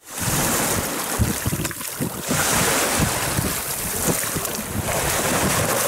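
Strong gusty storm wind buffeting the microphone, over small waves washing onto a pebble shore.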